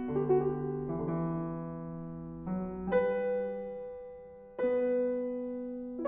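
Slow, gentle solo piano music: chords and single notes struck every second or so, each left to ring and fade before the next.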